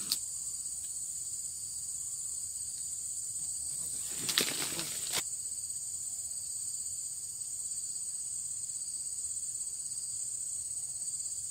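Steady, high-pitched insect chorus, with a brief burst of noise about four seconds in.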